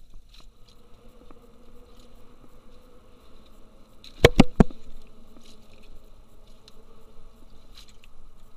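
Three sharp knocks in quick succession about four seconds in, made while a small tautog is handled and unhooked in a kayak. Under them runs a faint steady buzz.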